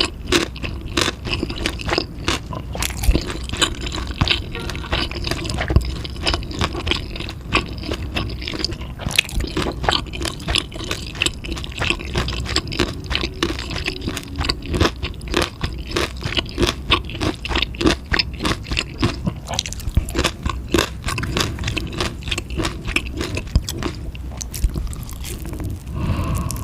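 Close-miked chewing of food, a dense, unbroken run of wet clicks and crunches.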